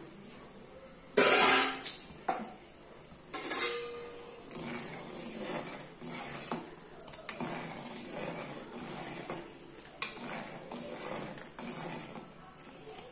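A spoon clinking sharply twice against a clay cooking pot, then scraping and stirring through a boiling tamarind gravy in irregular strokes.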